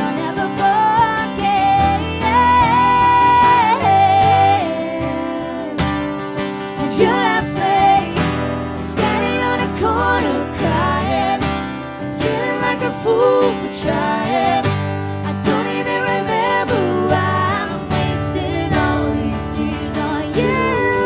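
Live acoustic country song: a woman singing lead over two strummed acoustic guitars.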